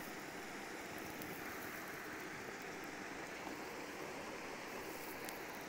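Water gushing steadily through an open paddle in a canal lock gate and splashing into the lock chamber as the lock fills.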